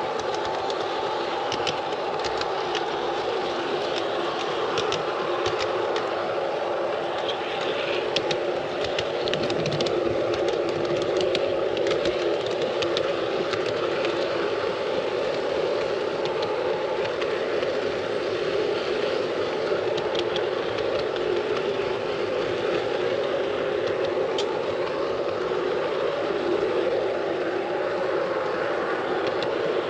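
G scale model train running along the track, its drive whirring steadily, with scattered light clicks as the wheels pass over the rails.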